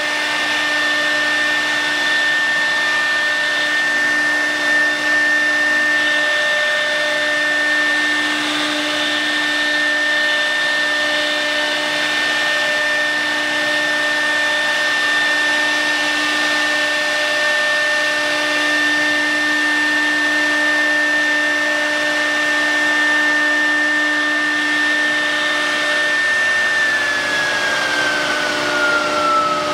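CNC router spindle running with a steady high whine; near the end its pitch falls as the spindle slows down.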